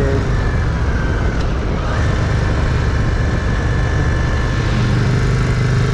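Yamaha Virago V-twin motorcycle engine running steadily under way, heard from the rider's own bike, with rushing wind noise. The engine's note sags and then picks back up about two seconds in.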